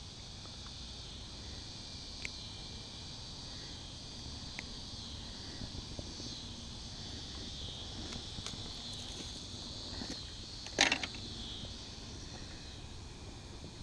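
Steady high chorus of insects, crickets or similar, with a few faint clicks and one short louder knock about eleven seconds in.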